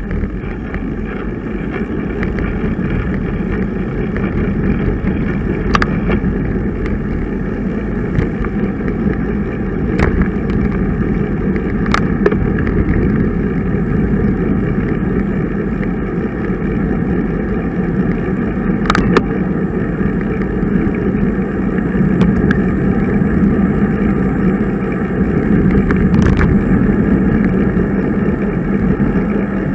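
Steady rush of wind and road noise on a camera carried on a road bicycle while riding, with a few sharp ticks scattered through it.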